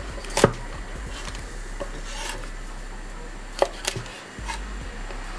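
Kitchen knife chopping purple sprouting broccoli stalks on a wooden cutting board: a few sharp knocks of the blade hitting the board, the loudest about half a second in and two close together near four seconds in.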